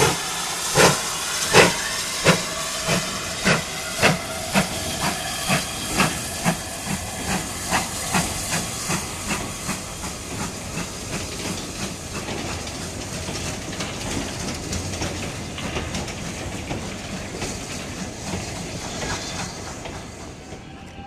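GWR 2-8-0 heavy freight steam locomotive pulling away with a train of mineral wagons. Its sharp exhaust beats quicken from slow, spaced chuffs to about three a second, over a steady hiss of steam. The beats fade steadily as the train draws away, mixed with the rumble and clank of the rolling wagons.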